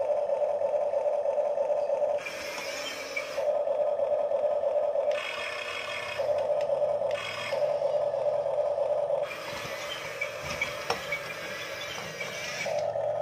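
Huina RC toy excavator's small electric motors and gearboxes running in turn as the boom, arm, bucket and turntable move. A steady whine starts and stops several times, alternating with a noisier, hissier gear sound, with a few sharp clicks near the end.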